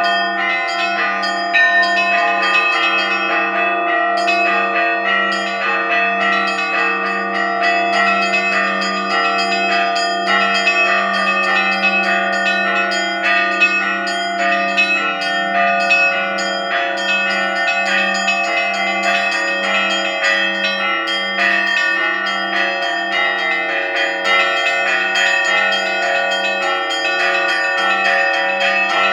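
Russian Orthodox church bells ringing a full continuous peal. Small bells are struck rapidly and overlap over a low bell that sounds at a steady, even beat.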